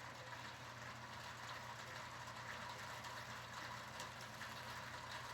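Steady rain on the closed steel louvre roof of a pergola: a constant hiss with faint scattered ticks of drops, over a steady low hum.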